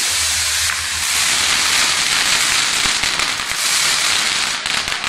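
Fireworks on a torito, a bull-shaped pyrotechnic frame, burning: a loud steady hiss of spraying sparks with rapid crackling pops.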